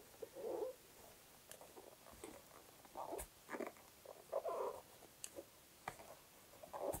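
Faint rustling and scratching of yarn being drawn through stitches with a crochet hook, in short separate strokes with a few light clicks.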